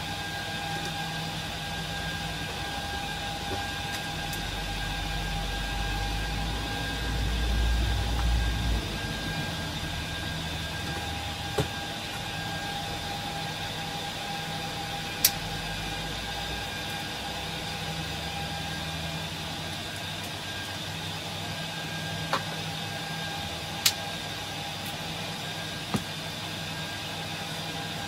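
HP ProLiant DL380p G8 rack server's cooling fans running with a steady whir and several fixed whining tones. A low rumble swells about four seconds in and fades over the next several seconds, and a handful of sharp clicks are scattered through.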